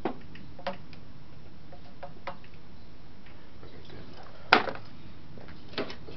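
Scattered light clicks and knocks of intake parts, hose clamps and tools being handled on a vehicle's metal fender. The sharpest knock comes about four and a half seconds in.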